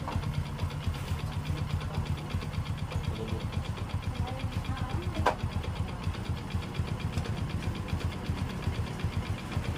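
Honda Supra X 125's single-cylinder four-stroke engine idling steadily with an even pulse, while its carburetor floods. One sharp click about five seconds in.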